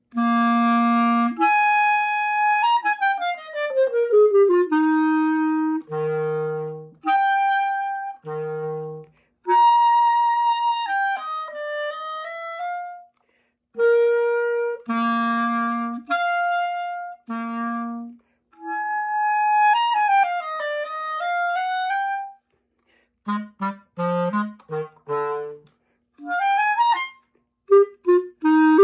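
Unaccompanied solo clarinet playing a melody in separate phrases with short pauses between them. It includes a long sliding descent in pitch, a swoop down and back up, and a run of short detached notes near the end.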